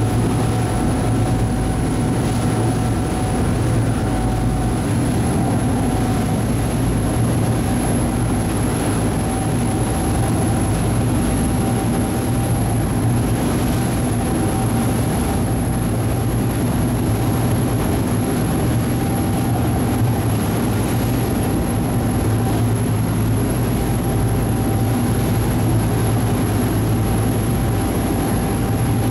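Ferry engine running steadily under way, heard on board: a constant low drone with a thin high whine above it.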